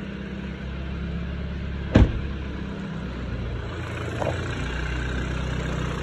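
2013 BMW 328i's 2.0-litre turbo four-cylinder idling steadily with no whistle, its new PCV valve having cured the whistling. A single sharp knock about two seconds in.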